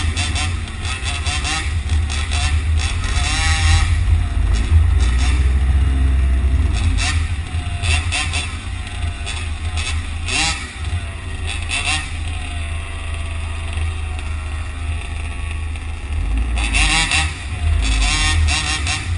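Road traffic noise with a heavy low rumble, motors revving up and down in short rising and falling whines, and clusters of sharp clattering knocks.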